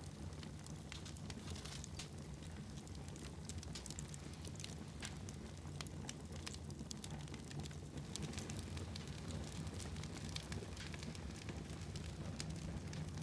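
Fire crackling in a fireplace: scattered sharp pops and snaps over a steady low rumble.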